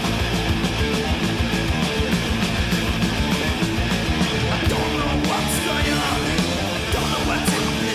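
Thrash metal band playing live: distorted electric guitar, bass guitar and drums, with cymbal crashes about five and a half and seven and a half seconds in.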